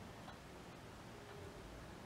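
Very quiet room with a few faint, soft clicks from a sponge-tip applicator dabbing matte lip product onto the lips.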